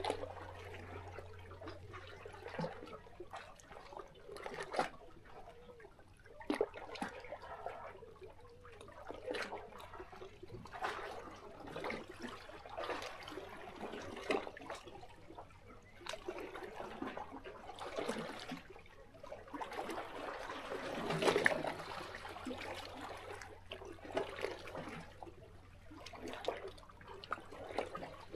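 Small sea waves lapping and splashing irregularly against shoreline rocks, with one louder surge about three quarters of the way in.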